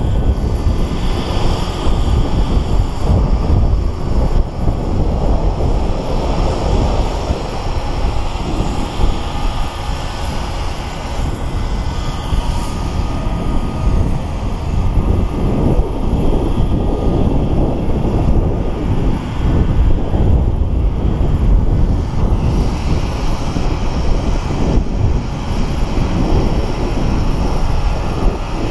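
Wind buffeting the microphone: a loud, unsteady, low rushing noise with no clear pitch or rhythm.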